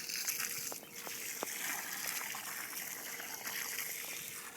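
Water from a garden hose running and trickling into a flooded sandbox, a steady hiss.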